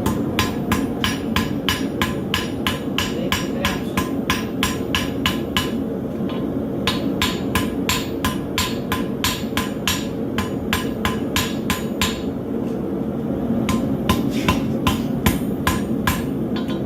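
Hand hammer striking a hot mild-steel horseshoe on an anvil, forging it out into a knife blade: fast ringing blows, about four a second, with two short pauses and slower blows near the end.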